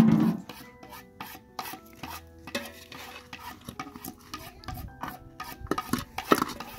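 A spoon scraping and stirring against the side of a metal cooking pot of boiled potato pieces, in quick repeated strokes about three a second. There is a louder clunk at the start, and the scrapes get louder near the end.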